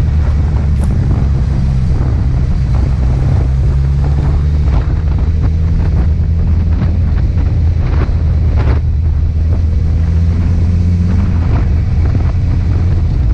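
Wind buffeting the microphone of a camera mounted on a moving motorcycle, over a steady low engine and road rumble, with gusts all through.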